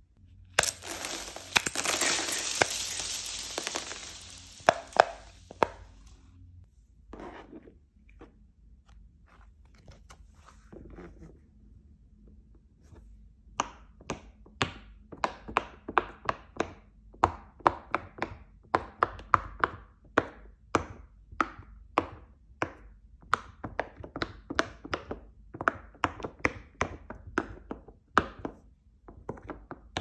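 A pop-it fidget spinner spun by hand, its bearing whirring and fading over a few seconds. Then a silicone pop-it fidget toy is pressed bubble by bubble: a long run of sharp pops, about two a second.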